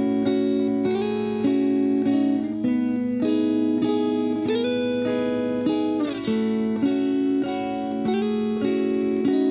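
Background music: a guitar playing sustained chords that change about once a second, some notes sliding into the next chord.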